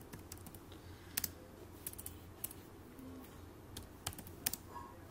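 Computer keyboard being typed on: about a dozen short key clicks at an irregular pace, some in quick pairs, with pauses between.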